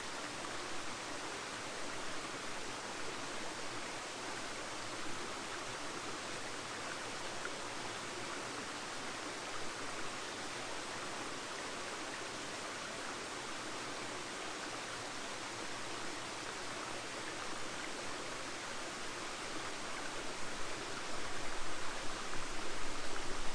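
Steady rush of a stream flowing over rocks, an even hiss. A low rumble comes in near the end.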